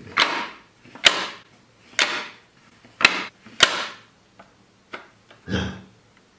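A series of about six sharp knocks, roughly a second apart, each trailing off briefly, with a deeper, duller thump near the end.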